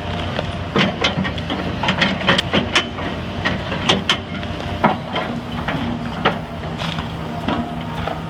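Heavy machine engine running steadily under a series of irregular sharp cracks and knocks, most of them between about one and five seconds in.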